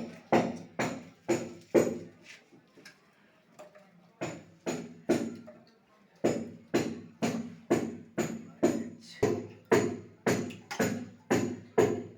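Repeated hammer blows, about two a second, each with a sharp metallic ring, with a short break about two seconds in.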